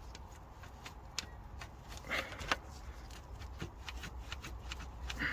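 Scattered light clicks and taps of hand tools and small metal parts being handled on an engine, with a sharper click about a second in and a brief scrape about two seconds in.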